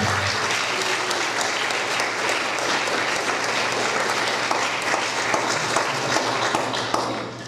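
Audience applauding: dense, steady hand-clapping that fades out near the end.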